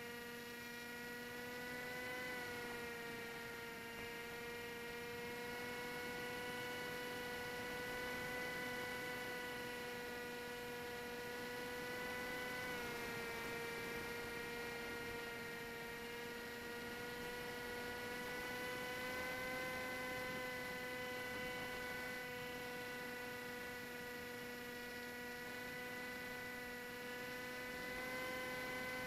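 Electric motor and propeller of an AXN radio-control plane heard from an onboard camera, running as a steady whine. Its pitch dips slightly about two seconds in and again around thirteen seconds, then creeps back up with the throttle.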